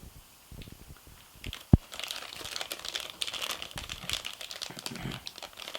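Packaging crinkling and rustling as camcorder accessories are taken out of their wrapping, with one sharp knock a little under two seconds in.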